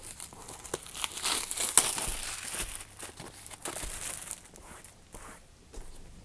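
Packaging being handled and opened: irregular crinkling and rustling with sharp little clicks, busiest over the first four seconds or so and then thinning out.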